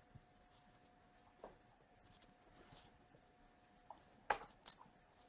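Near silence: room tone with a faint steady hum, scattered faint ticks, and two short sharper clicks near the end.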